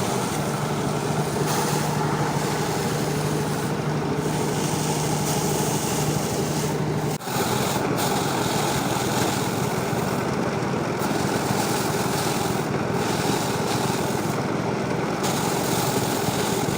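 Motorized paddy threshing machine running steadily, a continuous loud mechanical din, with a brief break about seven seconds in.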